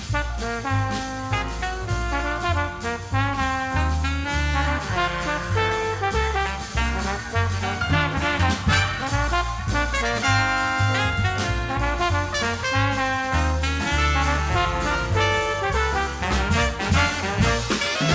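Background music: upbeat swing jazz with brass melody and a walking bass line.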